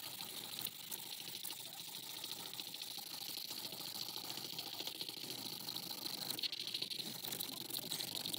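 Felt-tip marker scribbling fast across paper: a dense, continuous scratching.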